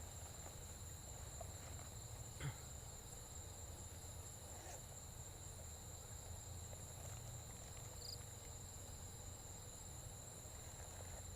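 Crickets chirring steadily in a high, continuous tone, with a single soft knock about two and a half seconds in.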